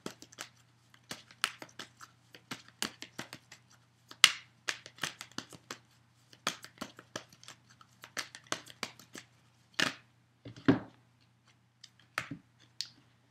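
A deck of Romance Angels oracle cards being shuffled by hand: an irregular run of quick card flicks and slaps, a few of them louder.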